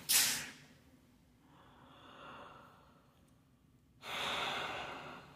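A person breathing out heavily: a short huff at the start, a faint breath a couple of seconds in, and a louder, longer exhale like a sigh about four seconds in that fades away.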